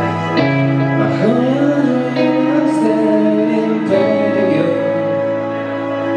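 A live band playing loud amplified music, led by electric guitars holding sustained notes, with a voice singing at times.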